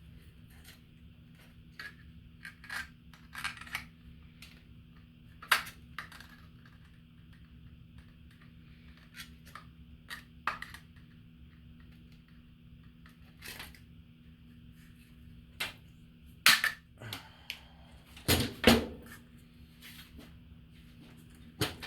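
Scattered sharp clicks and snaps of small parts being handled and trimmed with cutters, a millimeter at a time, with a few louder snaps and a quick double snap near the end.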